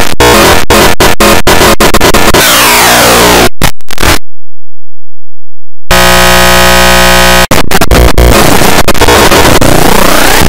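Heavily distorted, clipped electronic noise: a cacophony of sweeping tones chopped by abrupt cuts. About four seconds in it drops out for nearly two seconds, comes back as a steady buzzing tone, then breaks into sweeping noise again.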